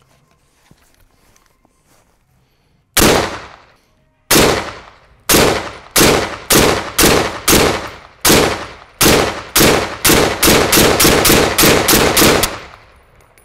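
Zastava M59/66 semi-automatic rifle in 7.62×39 mm fired in rapid succession, about twenty shots emptying its 20-round magazine. The first shots come about a second apart, then the pace quickens to about three or four a second near the end.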